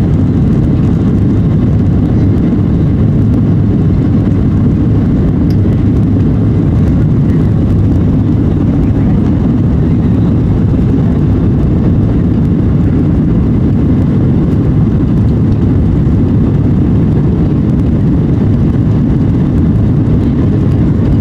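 Airliner jet engines at takeoff power and the wheels on the runway, heard from inside the cabin as a loud, steady, deep rumble during the takeoff roll.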